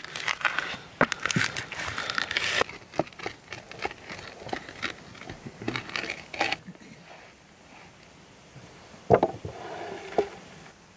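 Hazelnuts crushed under a hand-held stone on a wooden tray: crunching and crackling with clicks of stone and nut on wood, thinning out after about six seconds. A little after nine seconds, a sharp knock and a brief rattle as crushed nuts are poured from a wooden tray.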